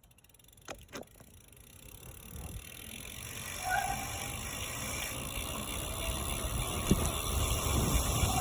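Bicycle rolling downhill on pavement: the rush of wind and tyres builds steadily as it picks up speed. There are two clicks about a second in, and a brief brake squeal just under four seconds in.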